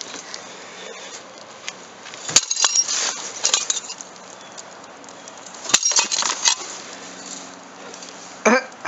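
Sharp ceramic clinks and knocks as a mug strikes a bowl, in two clusters, about two and a half and six seconds in.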